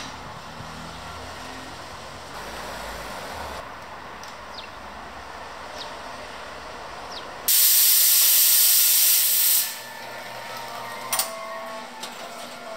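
Faema President espresso machine letting out a loud hiss of steam and water for about two seconds, stopping abruptly. A short glassy click follows.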